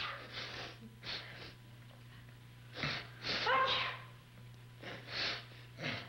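A person's short, sharp breathy gasps, with the loudest one, a voiced sneeze, about three seconds in, followed by a few more sharp breaths. A steady low hum runs underneath.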